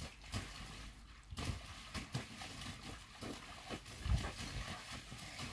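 Water splashing in an inflatable paddling pool as children jump in it, with a garden hose spraying; irregular dull thumps through it.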